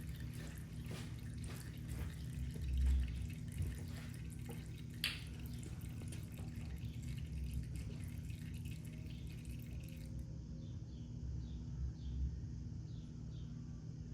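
Motor oil dripping and trickling out of a motorcycle engine's drain into a drain pan, with one sharp click about five seconds in. About ten seconds in the sound changes abruptly to a quieter background with insects chirping at an even pace.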